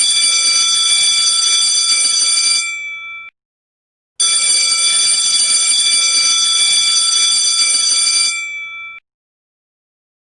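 Electric alarm bell ringing as a sound effect, in two bursts of about four and a half seconds each. The first ends about three seconds in and the second starts about a second later; each fades briefly, then cuts off suddenly.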